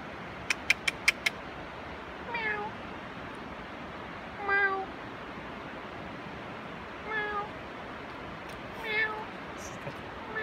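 A person imitating a cat, giving four short meows about two seconds apart to attract a squirrel, each about half a second long at a steady pitch, with a fifth starting at the end. Before the first meow come five quick, sharp clicks.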